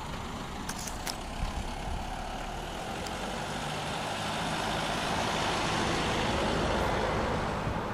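A car passing on the road, its engine and tyre noise building over several seconds and easing off near the end.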